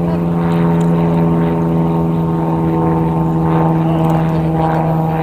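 A steady motor drone holding one unchanging pitch, with faint distant voices.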